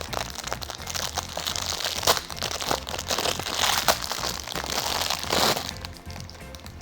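Packaging crinkling and rustling in dense, irregular crackles as a Hot Wheels toy car is unwrapped from its advent calendar compartment. It stops about five and a half seconds in.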